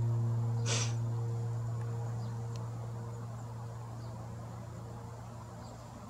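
A long, low held note of background music, with a few higher tones above it, slowly fading out. A brief soft hiss comes about a second in.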